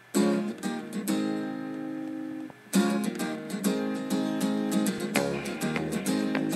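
Acoustic guitar music: strummed chords, with one chord left ringing for about a second and a half before the strumming starts up again, busier.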